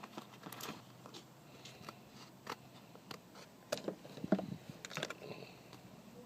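Scissors snipping through a sheet of lens repair panel material: a run of short, irregular snips, the loudest between about three and a half and five seconds in.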